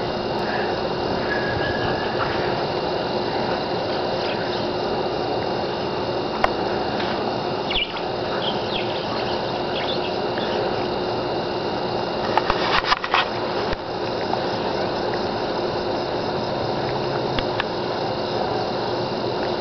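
A dog's squeaky toy squeaking now and then, short high squeaks at scattered moments, with a brief louder flurry about two thirds of the way through, over a steady background hum.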